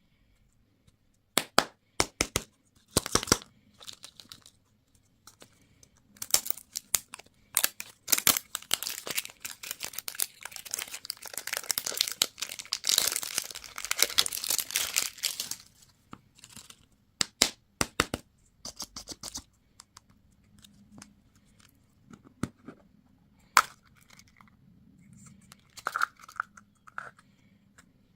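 Plastic candy wrappers crinkling and tearing as they are unwrapped by hand. A few sharp clicks come first, then a dense stretch of crinkling through the middle, then scattered clicks and rustles.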